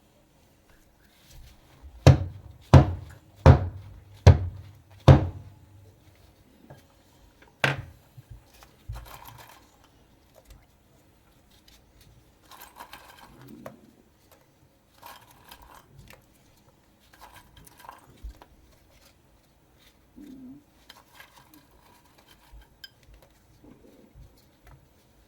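Kitchen utensil knocking against a dish: a run of five sharp knocks about one every three-quarters of a second, then a single knock, followed by quieter scraping and clinking of dishes and utensils.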